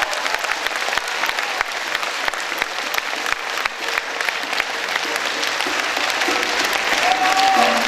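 Audience applauding: dense, steady clapping from a large crowd, with a few faint tones coming in near the end.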